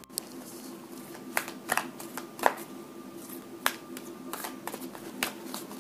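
A deck of tarot cards being shuffled by hand: irregular soft clicks and slaps as the cards strike and slide against each other, over a faint steady hum.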